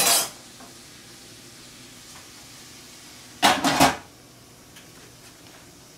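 Two short noisy clatters over a faint steady hiss: one right at the start, and a double one about three and a half seconds in.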